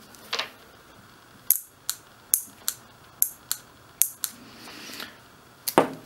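EVAP purge control solenoid valve from a Suzuki Sidekick / Geo Tracker, clicking sharply open and shut about ten times at uneven intervals as 12 volts is applied and removed through test leads. The clicks show the valve opening and closing properly.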